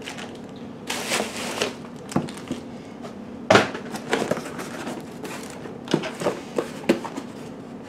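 Plastic packaging and bubble wrap crinkling as parts are unpacked, with a sharp knock about three and a half seconds in and a few lighter knocks near the end as a small cardboard box is moved on the bench.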